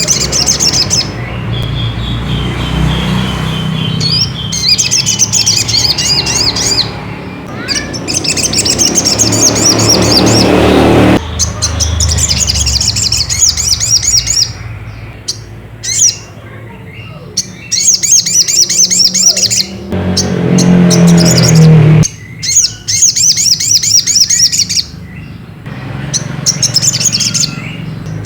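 Little spiderhunter (sogon) calling: bursts of rapid, high chattering notes, each a few seconds long, repeated with abrupt breaks between them over a low background rumble.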